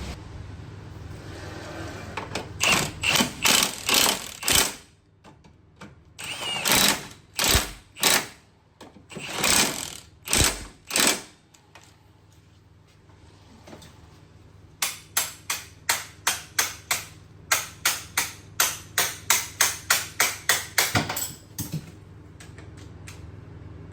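A tool working in short repeated bursts during suspension-arm work on a car. There are groups of sharp strikes, then a fast run of about three a second in the second half.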